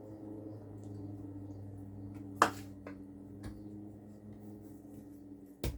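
A few sharp clicks and knocks over a faint steady hum: one loud click about two and a half seconds in, smaller ticks after it, and a short knock near the end.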